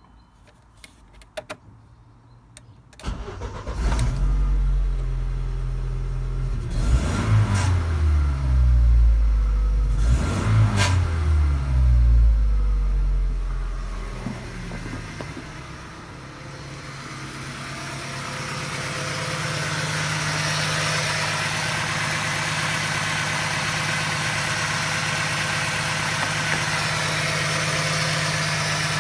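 Ford Transit 2.0i DOHC four-cylinder petrol engine starting after a few clicks, revved up twice and allowed to fall back, then idling steadily. It is heard first from the driver's seat and then close up at the open engine bay, where the idle is louder and brighter.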